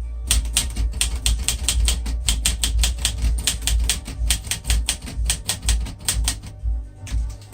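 Underwood 315 manual portable typewriter being typed on in a fast, even run of keystrokes, about six a second. There is a short pause near the end, then a few more strokes.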